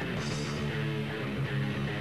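Hardcore punk music with guitar, playing steadily at an even level.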